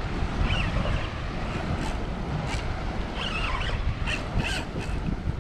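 Wind rushing over the microphone and water around a small boat, a steady low rumble, with a few faint brief high-pitched sounds scattered through it.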